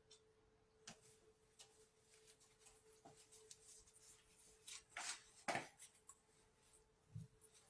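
Near silence: faint handling noises of hands at a kitchen counter, with two short rustles about five seconds in, over a faint steady hum.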